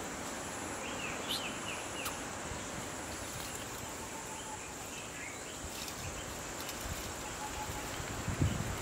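Rural outdoor ambience: insects droning steadily at a high pitch, with short bird chirps in the first few seconds. A few low thumps near the end are the loudest sound.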